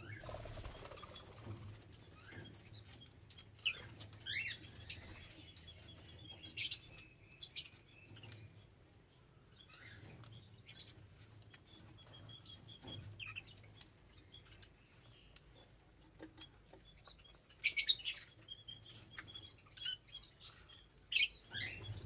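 Small pet parrots kept as love birds chirping and calling in short, high, scattered notes, with a louder cluster of calls about three quarters of the way through. A faint steady low hum sits underneath.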